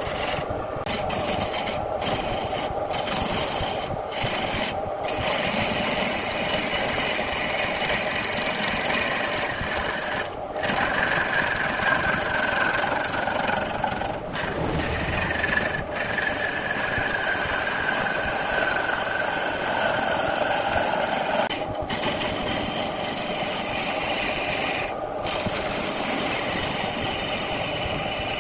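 Lathe chisel cutting into a spinning wooden blank on a wood lathe: a continuous scraping, rasping noise of the tool shaving the wood. A faint whining tone slowly falls in pitch through the middle, and the sound breaks off for a split second several times.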